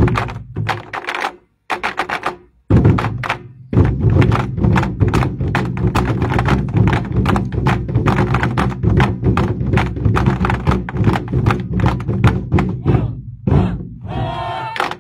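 24 Festive Drums ensemble: large Chinese barrel drums struck with sticks in rapid unison strokes. About a second and a half in, the drumming stops for about a second, then resumes in a dense, driving run.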